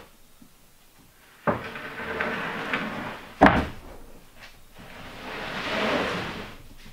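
Plywood subfloor sheets being slid across one another onto a stack: a scrape starts about a second and a half in, a sharp wooden slap comes a little past halfway, and a longer sliding scrape follows near the end.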